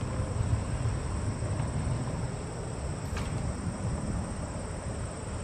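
Steady low rumble of a Norfolk Southern freight train rolling past, with crickets chirping steadily in the background.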